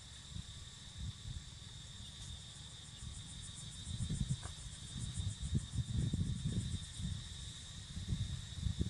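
Insects calling: a steady high-pitched drone throughout, joined by a rapid pulsing trill from about two to seven seconds in. An uneven low rumble lies underneath.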